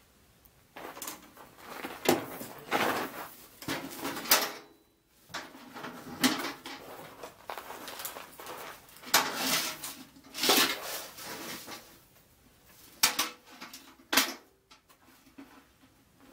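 Someone rummaging through clutter: irregular clattering, knocking and rustling as objects are moved and set down, with about eight louder knocks.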